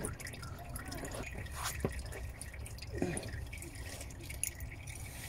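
Old engine oil dripping into a drain pan: a few scattered drops, one with a short falling plink about three seconds in.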